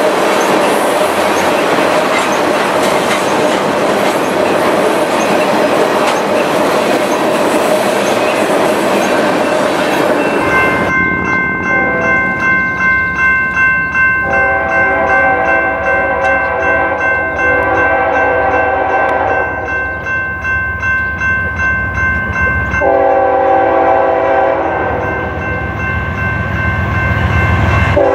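Long train of loaded tank cars rolling past close by, wheels clacking over the rail joints. About ten seconds in, a Norfolk Southern GE ES44AC diesel locomotive (Lehigh Valley heritage unit 8104) approaches sounding its air horn in long held chords, with its engine rumble growing louder near the end.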